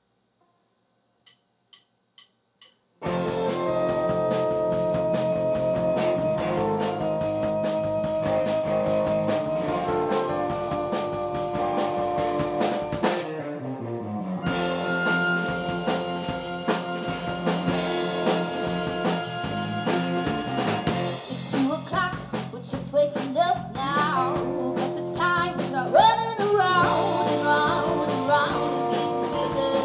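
Four quick, evenly spaced clicks count the band in, then a pop-folk band starts together: drum kit, electric bass and sustained keyboard chords. About thirteen seconds in the sound slides steadily down in pitch, and from about twenty-one seconds a wavering, bending lead melody joins over the band.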